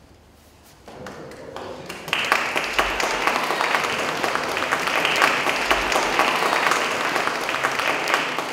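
Audience applauding, starting faintly about a second in and swelling to full, steady clapping about two seconds in.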